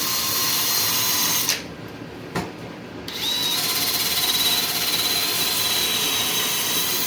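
Handheld power tool running with a high whine as it scuffs the back of a leather saddle cantle, roughening it to take glue. It stops about a second and a half in, a click follows, and it spins back up about three seconds in and runs on.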